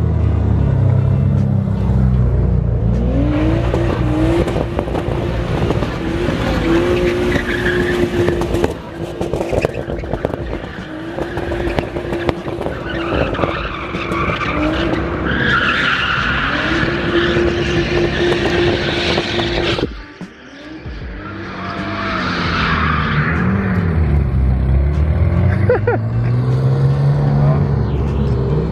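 Nissan Skyline GT-R's twin-turbo straight-six held high in the revs through long drifts, with tyres squealing; the engine note holds steady, then rises and falls. About two-thirds of the way through the sound drops off briefly, then engine and tyre squeal pick up again.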